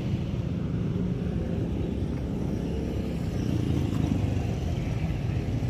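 Nearby road traffic: a motor vehicle's engine running, a steady low rumble.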